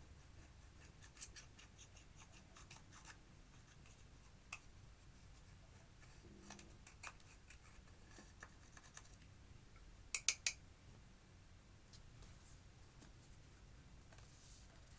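Clear slime being worked by hand with crushed eyeshadow mixed in: scattered faint clicks and pops, with three sharp clicks in quick succession about ten seconds in.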